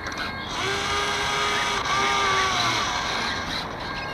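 The sail winch servo of an IOM radio-controlled yacht whining as it trims the sheets: one run of about a second and a half, its pitch rising slightly then falling, then a short second run. Underneath is a steady hiss of water and wind along the hull.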